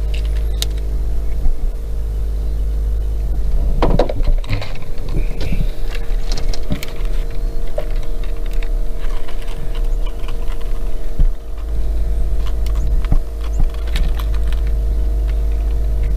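Scattered clicks and rattles of fishing tackle being handled as line is let out and a planer board is clipped onto it, over the steady hum of the boat's motor while trolling.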